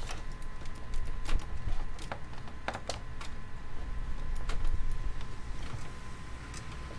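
Scattered light clicks and knocks of hands handling parts inside a desktop PC case, over a steady low hum.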